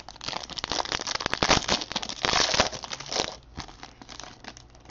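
A foil trading-card pack wrapper crinkling and crackling in the hands as it is pulled open. The crinkling is loud for about the first three seconds, then drops to fainter rustling.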